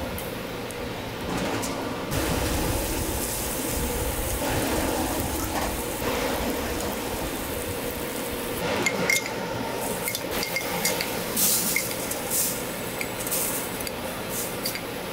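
Cooking on a flat-top griddle: a steady sizzle with a spatula working the egg-and-cabbage toasts, then, from about halfway, a run of sharp clinks and taps from utensils and containers as the toasts are sugared.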